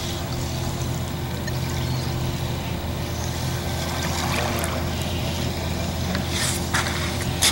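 Small waves washing and lapping onto a sandy, pebbly shoreline over a steady low hum. There are a few sharper splashes about halfway through and near the end.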